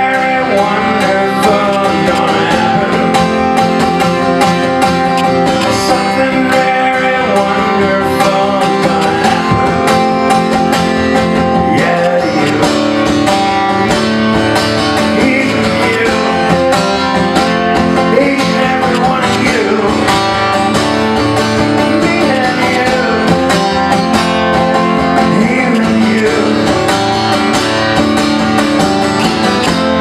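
Acoustic guitar played solo and live, strummed and picked through a song, with a man singing along in places.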